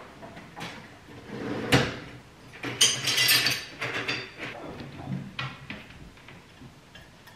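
Kitchen tidying: a handful of knocks and clatters of dishes and a dishwasher rack being unloaded, with a longer clatter about three seconds in.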